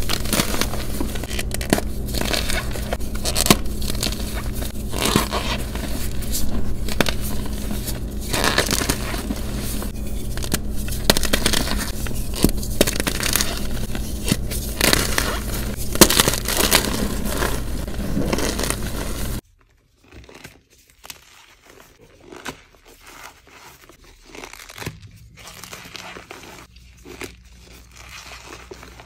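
Blocks of gym chalk being crushed and crumbled by hand in cornstarch powder: dense, loud crackling crunches over a steady low hum. Near the end the sound drops suddenly to quieter, sparser crumbling as the chalk is squeezed in glittery powder.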